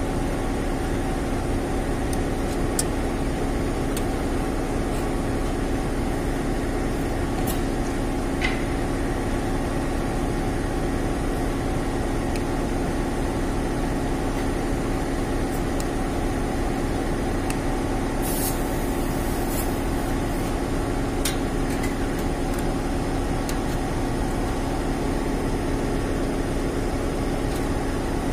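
Steady hum of a running machine, level and unchanging, with a few faint light clicks as wires are screwed into a temperature controller's terminals.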